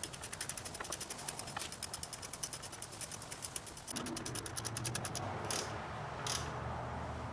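Hand ratchet clicking rapidly, about ten clicks a second, as the brake caliper bolts are cinched down; the clicking stops about five seconds in and two short scrapes follow.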